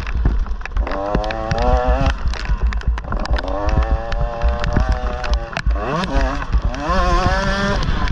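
An engine revving up and down in three long pulls, its pitch climbing each time, over a constant low wind rumble and frequent sharp knocks from rough ground.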